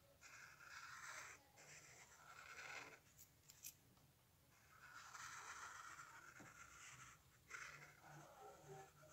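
Black felt-tip marker drawing on paper: a faint scratchy rubbing in four long strokes with short pauses between, and a couple of light ticks in the longest pause.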